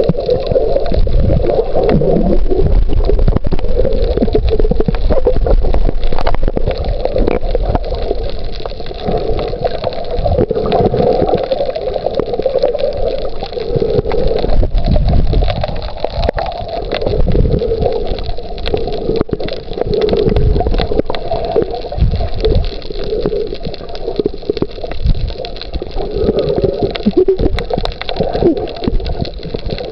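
Muffled underwater noise picked up by a submerged camera: a steady low rumble with gurgling water, swelling and fading every few seconds.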